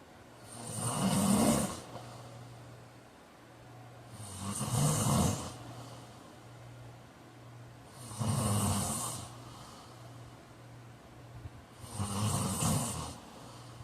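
A man snoring in a steady rhythm: four snores about four seconds apart, each lasting roughly a second.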